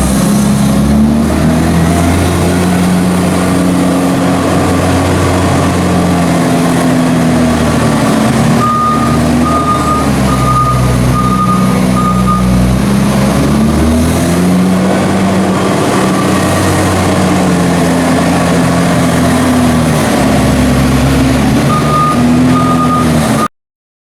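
Tractor engine running, its revs rising and falling as it drives back and forth rolling a maize silage clamp. A reversing alarm beeps about twice a second during two stretches, and the sound cuts out abruptly near the end.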